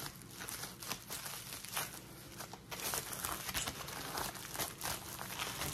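Packaging of a pack of colored pencils crinkling and rustling as it is handled, in many short crackles.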